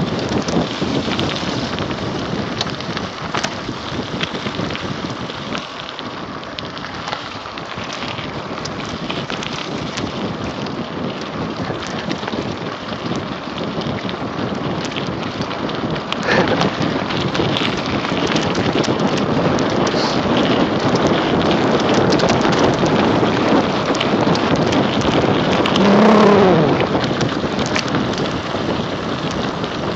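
Mountain bike riding fast down a dirt-and-gravel forest trail: steady wind buffeting on the microphone with tyre rumble and rattling over the track, dotted with clicks and knocks. A short falling tone near the end.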